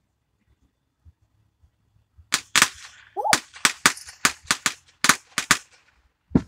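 Fireworks going off in quick succession: after a quiet start, a rapid run of about a dozen sharp bangs, with one more bang near the end.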